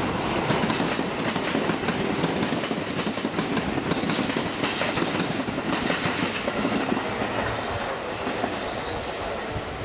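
Seibu 2000 series electric train passing at speed, its wheels clattering over the rail joints above a steady rolling rumble. The clicking thins out and the level eases a little over the last few seconds.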